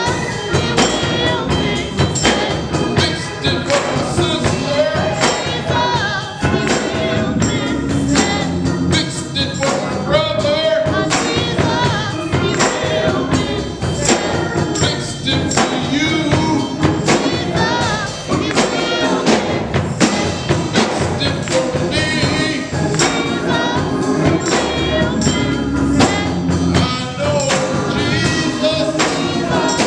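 Live gospel music: a choir or singers over a band, with a tambourine keeping a steady beat.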